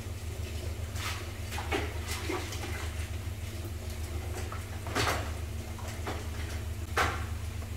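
A wet mop being wrung out in a mop bucket's wringer. There are several short knocks and clanks from the wringer and mop handle, the loudest about five and seven seconds in, over a steady low hum.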